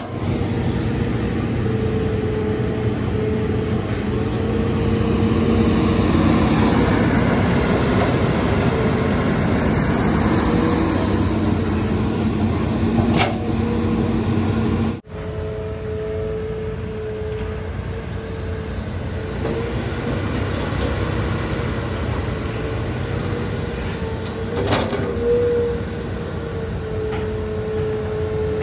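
Hitachi Zaxis hydraulic excavator working close by: its diesel engine runs under load with a steady whine as the machine digs and swings. The sound is loudest about a third of the way in. It breaks off abruptly for a moment about halfway through, and sharp clanks come about 13 and 25 seconds in.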